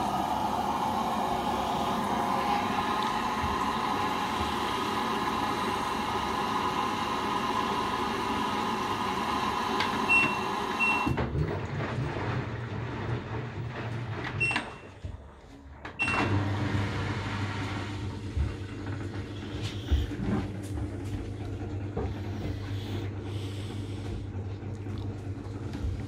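LG front-loading washing machine running through its service test mode: a steady machine noise stops abruptly about eleven seconds in, control-panel button beeps mark each step, and a low electric hum takes over, dropping out briefly just before the middle and starting again after another beep.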